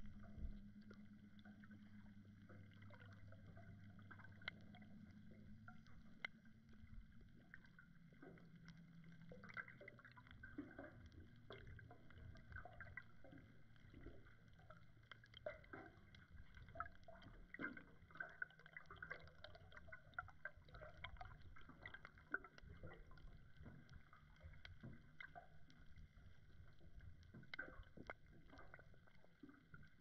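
Faint underwater sound heard through an action camera's waterproof housing: a low steady hum that drops in pitch about eight seconds in, under many scattered small clicks and crackles.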